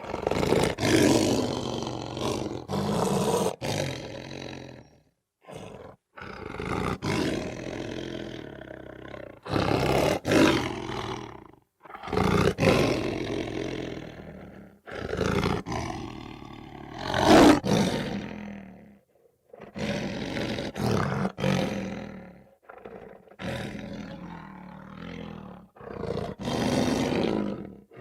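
Lion giving light roars, a series of about nine short roars separated by brief pauses.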